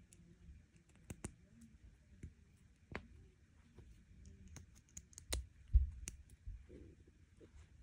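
Small plastic Lego Technic pins and connectors clicking and snapping as they are pressed together by hand: scattered short clicks, with a louder cluster and a dull knock a little before six seconds in.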